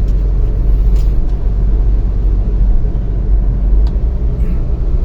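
Motor vehicle driving, a steady low rumble of engine and road noise.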